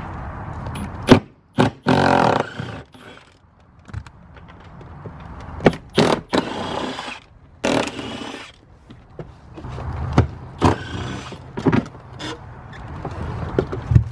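A cordless power tool run in four short bursts of about a second each, backing out the seat-mounting bolts of a C5 Corvette. Sharp clicks and metal knocks from the tool and the seat hardware come between the bursts.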